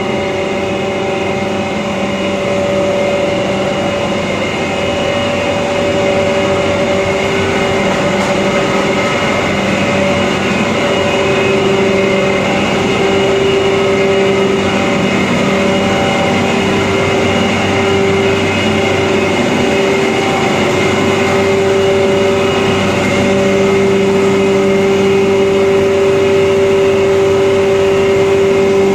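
Rice husk grinding machine and its cyclone blower running: a steady, loud mechanical hum with a strong droning tone that grows slightly louder toward the end.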